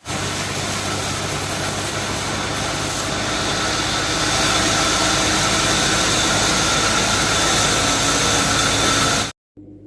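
Sawmill running with a dense, steady mechanical noise and a steady whine, growing slightly louder a few seconds in and cutting off abruptly near the end.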